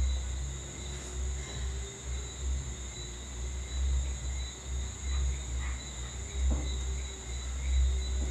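Steady high-pitched trilling of insects over a low, uneven rumble.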